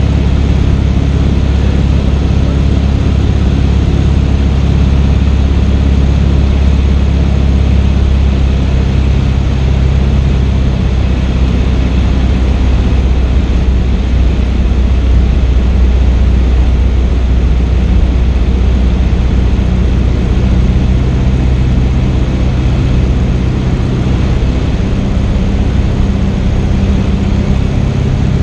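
Cessna 152's four-cylinder Lycoming engine and propeller running steadily in flight, heard from inside the cockpit as a loud, even drone with airflow noise.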